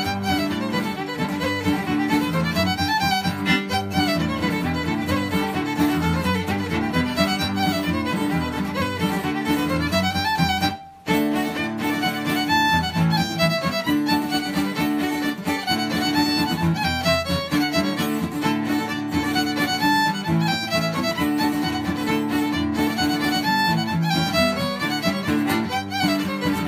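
Fiddle playing a Quebec-style reel with guitar accompaniment. The sound drops out briefly about eleven seconds in, then the music carries on.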